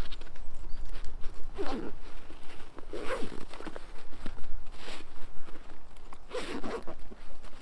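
Zipper on a fabric camping-chair carry bag being pulled shut in about four short pulls, with the fabric rustling.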